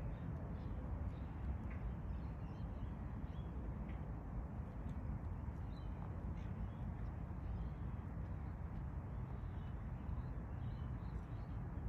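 Steady low rumble of outdoor background noise, with faint short bird calls scattered through it.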